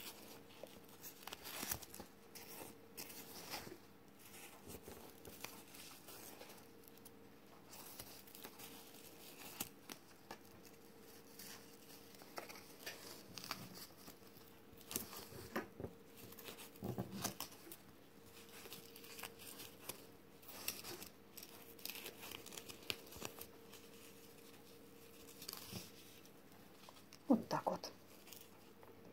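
Faint, scattered rustling and brushing of satin ribbon as it is wound around a ring base by hand, over a faint steady hum.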